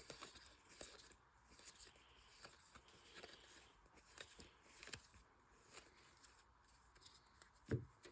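Faint rustling and light taps of trading cards being handled and slid past one another, with a soft thump near the end.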